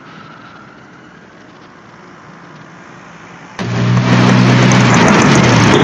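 Low, steady street-traffic background, then about three and a half seconds in a sudden, much louder vehicle engine noise with a steady low hum that holds to the end.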